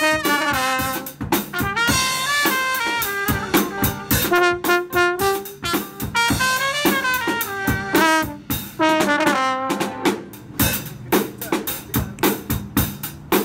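Trumpet and baritone horn play a melody together over a drum kit. About ten seconds in, the horns stop and the drum kit carries on alone.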